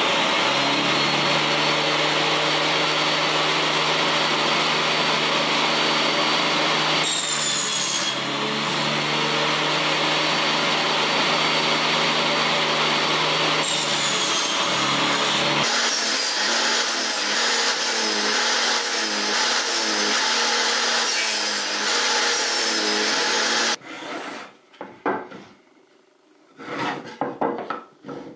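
Benchtop table saw running steadily and crosscutting fir boards on a crosscut sled, its motor hum dipping about once a second in the later cuts. It stops abruptly about 24 seconds in, followed by the knocks of wooden boards being set down and handled.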